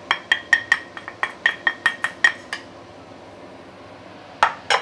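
A utensil tapping quickly against the rim of a ceramic plate, about five sharp clinks a second for two and a half seconds, each with a brief ring, knocking chopped aromatics off the plate into a wok. Near the end come two heavier knocks.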